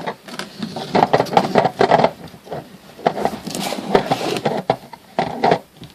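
Hard plastic clicking, rattling and scraping of a DeWalt 20V battery pack being slid onto a cordless drill and handled, a run of irregular small knocks.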